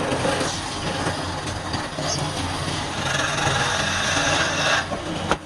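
Wood lathe running, with a turning tool cutting into the spinning wood. The cutting noise stops sharply near the end, followed by a single sharp click.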